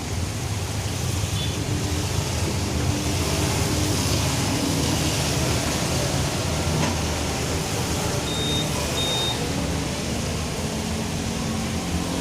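Heavy rain pouring in strong wind: a steady rushing noise with a low rumble. Two short high beeps sound about eight and nine seconds in.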